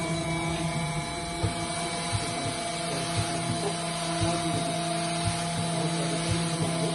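Emmegi Phantomatic Isola T4 CNC machining centre running with a steady hum made of several held tones. From about a second and a half in, a regular low tick sounds about three times a second.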